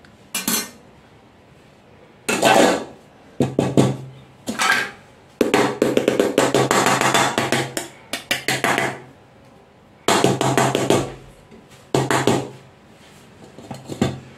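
Stainless-steel bowl upturned on a steel plate, tapped and knocked on its base in several bouts of rapid metallic clanking, the longest through the middle, to free the steamed cake inside.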